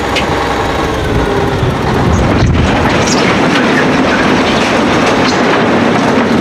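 A load of rocks sliding and tumbling out of a raised tipper truck bed: a continuous heavy rumbling clatter with a few sharper knocks as stones strike.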